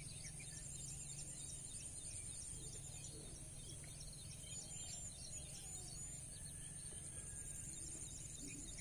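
Faint outdoor ambience: a steady high-pitched whine with scattered faint chirps, from insects and small birds.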